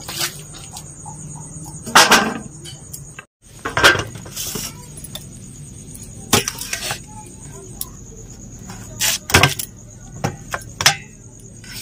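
Potatoes and a curved iron cutting blade knocking and clinking against a steel plate as new potatoes are handled and halved, about eight sharp knocks with a cluster near the end. A steady high insect trill runs underneath.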